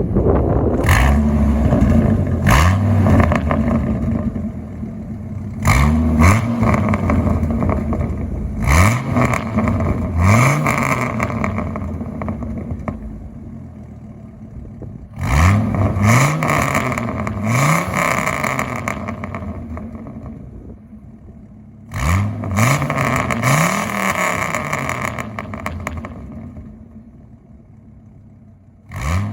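Dodge Ram 2500's 8.0-litre V10 through a custom exhaust, revved in quick blips in several bursts, each dying away before the next, with crackles and pops from the exhaust as the revs drop.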